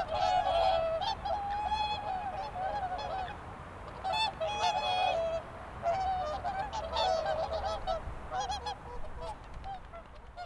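A flock of swans calling, many overlapping honks in clusters, thinning out near the end.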